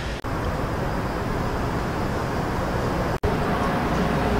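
Steady low rumble and hiss of background noise. It drops out for an instant twice, about a quarter second in and about three seconds in.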